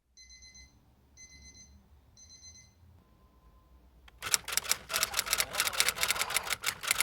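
Alarm clock going off, added in editing: three short electronic beeps about a second apart, then, about four seconds in, a much louder rapid clattering rattle that keeps going.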